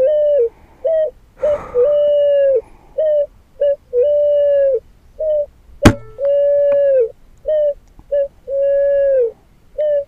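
Electronic bird caller playing a pigeon's cooing song: a repeating pattern of long and short coos on one steady pitch, loud and clean. One sharp crack about six seconds in.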